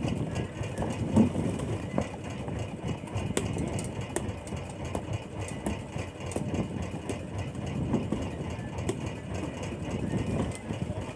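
Boat engine running steadily at sea, with indistinct voices and a few short knocks.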